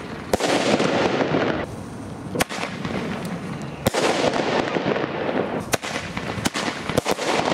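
Lesli Thunder Kong Max category II fireworks bursting in the air: about six sharp bangs a second or so apart, each followed by a noisy, echoing wash.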